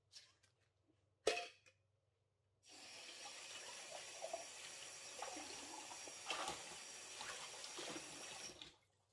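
One sharp knock a little over a second in, then a kitchen tap runs into a sink for about six seconds and is shut off.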